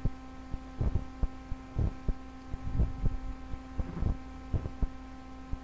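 A steady electrical hum made of several held tones, with irregular soft low thumps scattered through it.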